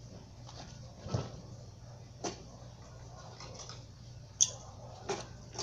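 Handling noises on an espresso machine's panels and parts: a handful of separate clicks and knocks, the sharpest about four and a half seconds in, over a low steady hum.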